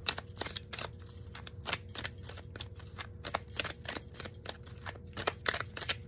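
A deck of tarot cards being overhand-shuffled by hand: a quick, uneven run of light clicks and taps as packets of cards drop onto the pile in the other hand.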